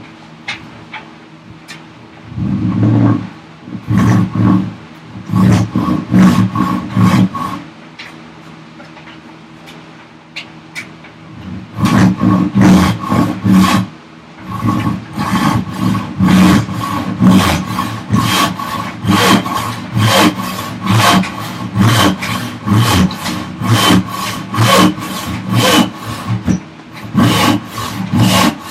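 Old Disston D8 handsaw cutting through ash, worked two-handed in push strokes. A few strokes, a pause of about four seconds, then a steady run of strokes at a little over one a second. The owner says the saw is due for sharpening.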